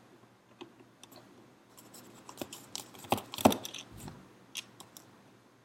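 Light clicks and scrapes of the Tamiya Double Gearbox's plastic parts and an Allen key being handled as the gearbox is taken apart. The loudest clicks come about three to three and a half seconds in.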